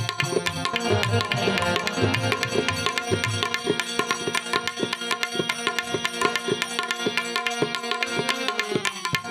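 Instrumental interlude of a Gujarati devotional song (bhajan): hand drums keep a fast, steady rhythm under a sustained melody line, with no singing.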